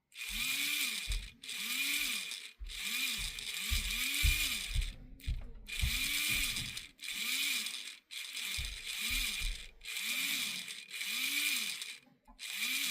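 Small HO-scale model locomotive electric motor and gearing running in short bursts, about a dozen roughly a second apart. In each burst the hum rises in pitch as it spins up and falls as it slows, over a gear whirr. It is being run in just after the motor was oiled.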